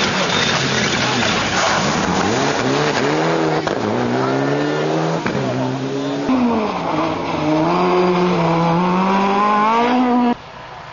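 Rally cars driven flat out on a special stage, one after another: engines revving hard, the pitch dropping and climbing again as each car brakes and accelerates through the gears. The sound cuts off abruptly about ten seconds in.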